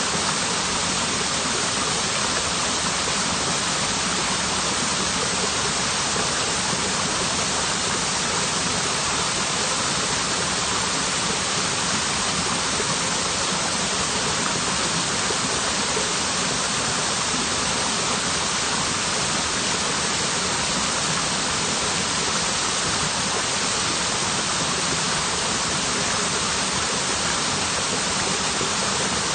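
Waterfall: water falling and splashing in a steady, even rush, with no change in level.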